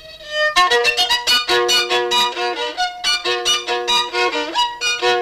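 Violin playing: a held note fades out, then about half a second in a fast run of short, sharply started notes begins and carries on.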